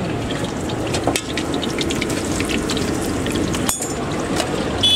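Fritters deep-frying in a large wok (kadai) of hot oil: a steady sizzle with fine crackling.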